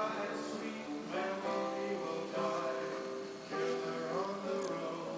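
Guitar music, with chords strummed about once a second.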